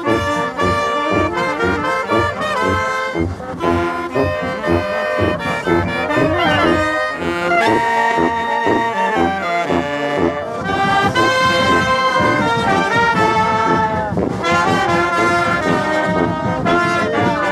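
Street brass band playing a festive tune: sousaphone bass notes on a steady beat under saxophones, trumpets and clarinets.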